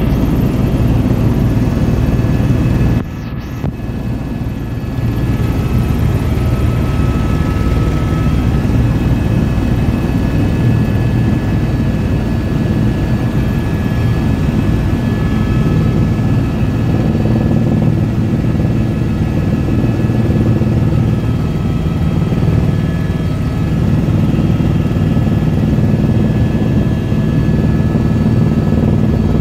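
Helicopter in flight heard from inside the cabin: a steady, loud drone of rotor and engine with faint steady high tones over it. The sound drops briefly about three seconds in.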